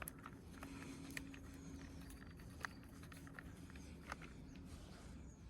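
Faint, sparse clicks and taps of small screws and a small screwdriver being handled on a work surface, over a low steady hum.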